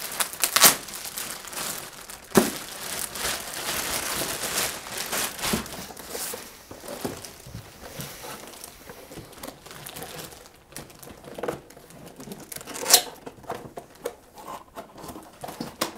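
Clear plastic packing bag crinkling and rustling as it is pulled back, with cardboard and foam packing being handled. A few sharp knocks stand out, the loudest about 13 seconds in.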